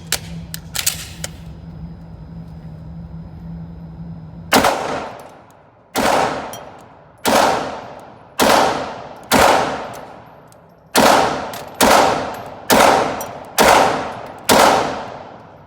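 Ten 9mm shots from a Glock 19X pistol fitted with a muzzle compensator, fired roughly one a second with a slightly longer pause after the fifth; each shot is followed by a trailing echo. A few small clicks of gun handling come in the first second or so.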